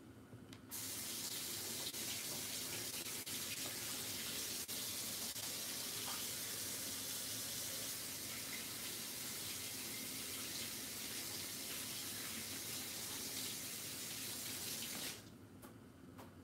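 Kitchen sink tap running in a steady stream, turned on about a second in and off sharply near the end.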